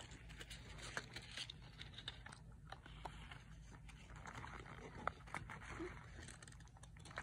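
Faint rustling and small clicks of fingers handling and opening a tiny cardboard toy box, over a low steady hum.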